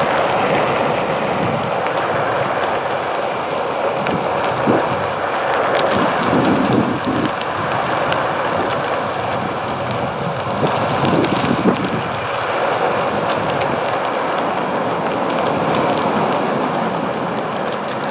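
Steady rushing noise of a Onewheel Pint rolling over pavement: tyre noise mixed with wind on the action-camera microphone, with a few short thumps from bumps along the way.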